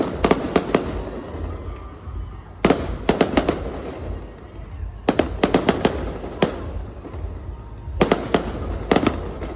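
Fireworks going off in quick volleys: four clusters of sharp cracks, each lasting about a second, roughly two to three seconds apart, over a low rumble.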